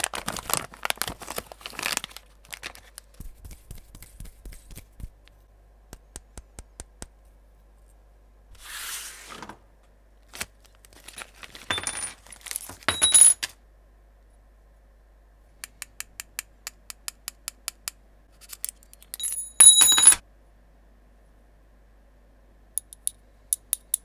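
Small metal RC car parts handled in plastic packaging: the bags crinkle, with scattered light clicks and taps, a run of evenly spaced clicks, and short metallic clinks that ring, the loudest about twenty seconds in.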